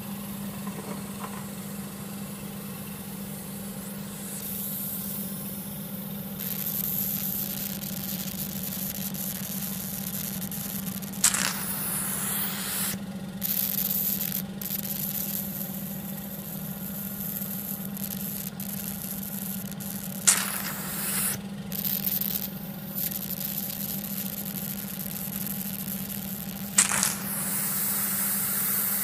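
Hydrofacial dermabrasion machine's vacuum pump running with a steady hum and hiss, while the vacuum handpiece draws air against the skin of a forearm. Three times, about 11, 20 and 27 seconds in, a sudden loud hiss of sucked air sounds as the handpiece seal on the skin changes.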